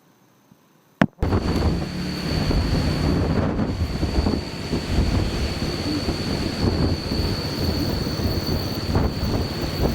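A sharp click about a second in, then wind buffeting the microphone in a loud, uneven low rumble, with a steady high-pitched whine above it.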